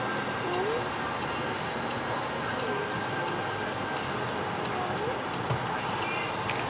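Steady rumble of a passing freight train, with a faint regular ticking about three times a second and a few faint short squeals.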